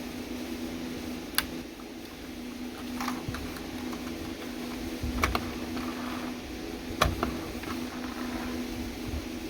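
A handful of sharp, separate clicks and taps, irregularly spaced, over a steady low hum: small hard parts of a diecast toy Jeep being handled.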